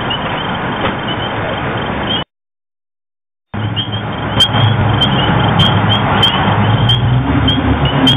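Security camera microphone picking up a muffled alarm siren over heavy hiss, with the footsteps of people running away. The audio cuts out completely for about a second, a little over two seconds in.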